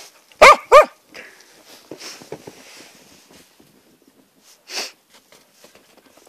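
A dog barks twice in quick succession, loud, about half a second in. Faint rustling in the snow follows, with one short rushing noise about five seconds in.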